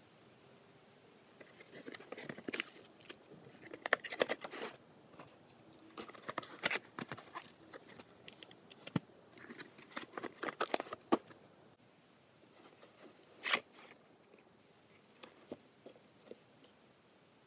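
Cardboard boxes and paper-wrapped firecrackers being handled: bursts of rustling, scraping and small clicks, with one sharper click late on.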